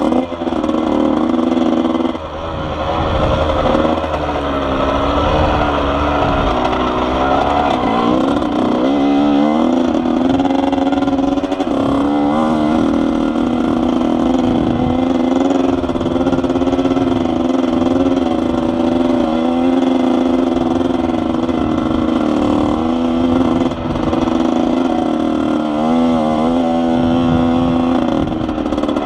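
Yamaha YZ80's two-stroke single-cylinder engine running under way on a dirt bike, its note mostly held steady. It drops off briefly a couple of times, and several times the pitch wavers quickly up and down with the throttle.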